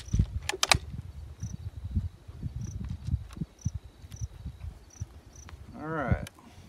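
Crickets chirping in a regular high pulse over a low rumble, with a couple of sharp clicks just under a second in and a short rising-and-falling voiced sound near the end.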